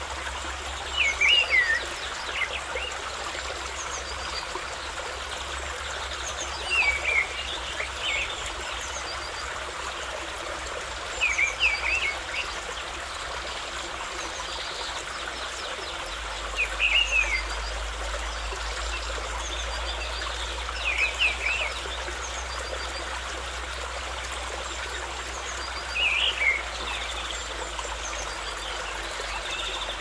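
Water trickling and running steadily, with a bird calling a short phrase of quick falling notes about every five seconds.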